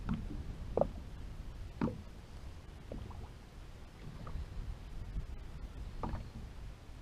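Water slapping against the hull of a small motorboat a handful of times, over a steady low rumble of wind and sea.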